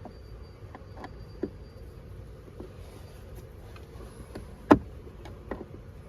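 Scattered clicks and knocks of a screwdriver and hands working at the blower motor's mounting screws and plastic housing under the dashboard, with one sharp knock about two-thirds of the way through.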